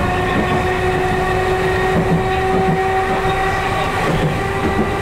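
Chikuho Electric Railroad 3000 series electric railcar running along the track at a steady speed, heard from inside the driver's cab: a constant rumble of wheels on rail with a steady drive whine held at an even pitch.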